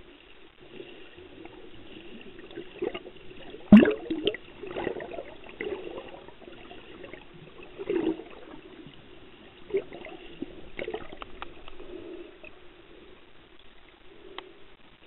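Muffled water noise heard by a camera below the surface, with bursts of gurgling bubbles and a few sharp clicks and knocks; the loudest is a knock about four seconds in.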